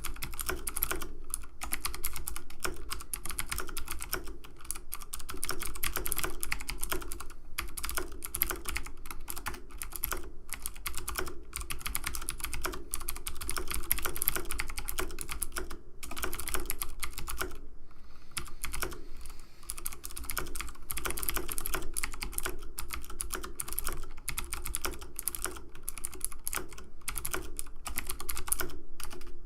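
Computer keyboard keys clicking in fast, continuous typing, easing off briefly a little past halfway, over a faint steady hum.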